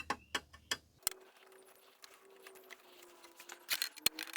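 Light, scattered clicks and ticks of a screwdriver on screws and plastic casing parts, with a faint steady hum underneath from about a second in.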